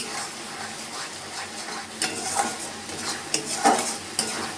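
Thick masala paste sizzling as it fries in oil in a metal kadai, stirred with a metal spatula that scrapes against the pan in several sharp strokes, about two seconds in and again near the end. This is the spice paste and ground spices being fried together.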